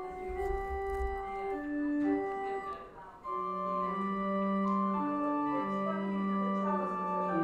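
Church organ playing slow, held chords. The sound briefly drops away about three seconds in, then returns with lower sustained notes.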